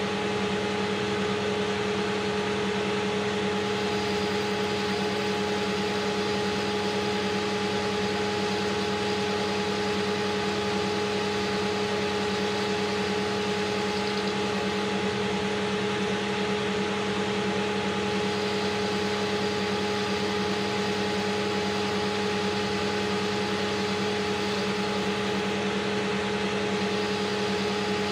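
AL960B metal lathe running steadily under power: an even machine hum with a constant whine, holding the same pitch and level throughout.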